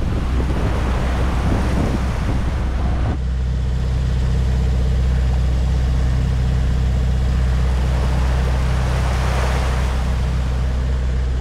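Wind and rushing sea noise aboard a sailboat in strong wind, over a steady low hum. The sound changes abruptly about three seconds in.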